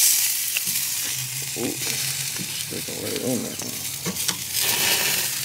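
A lamb leg sizzling on a charcoal grill, a steady hiss of fat and juices cooking over the coals, louder at the very start and again near the end.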